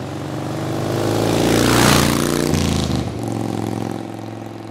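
Channel logo intro sound effect: a whoosh that swells over low steady tones, peaks about two seconds in, then fades away.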